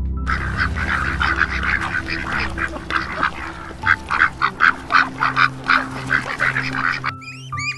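Mallard ducks quacking in a rapid, continuous series of short calls. Near the end this gives way to ducklings peeping in high, repeated chirps.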